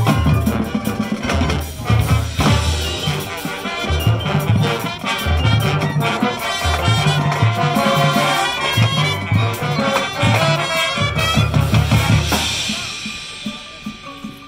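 Marching band playing: brass and drums in a loud, rhythmic passage with repeated low hits. About twelve seconds in it dies away to a soft held chord.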